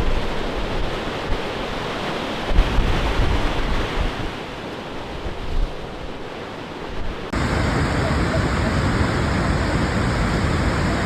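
Wind buffeting the microphone over rough surf. About seven seconds in, an abrupt cut to the steady, dense rush of a large waterfall in full flow.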